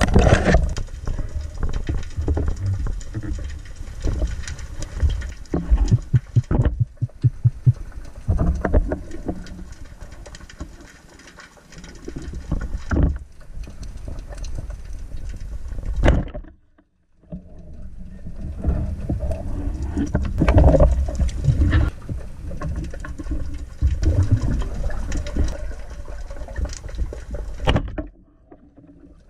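Underwater sound from a diver's camera: low rushing water movement with irregular clicks and knocks as a spearfisher swims and handles a speargun. It cuts out briefly about two-thirds of the way in and again near the end.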